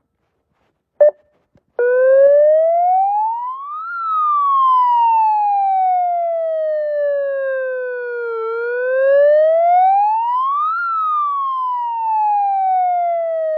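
Siren wailing: a single tone sliding slowly up and down twice, starting suddenly and cutting off abruptly at the end. A short beep comes just before it.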